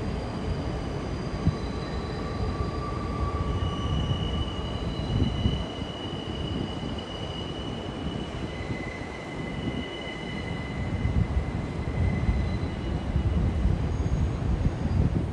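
Train running along the track with a heavy rumble, and long, steady high-pitched squeals of metal wheels on the rails.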